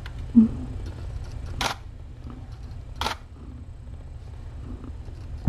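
Two short camera shutter clicks, about a second and a half apart. A brief soft low thump comes just before them, over a steady low hum.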